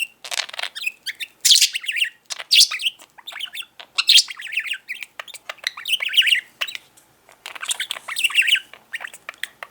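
Talking budgerigar chattering non-stop in a fast run of scratchy warbles, chirps and squawks, with only brief pauses.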